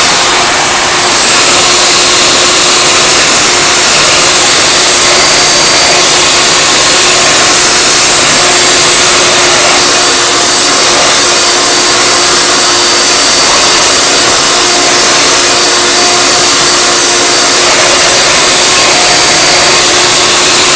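Hoover Elite vacuum motor, freshly fitted with new bearings, running steadily in a Hoover Futura base: a loud, even rush of air with a faint steady whine. The owner judges it to sound fine on the new bearings.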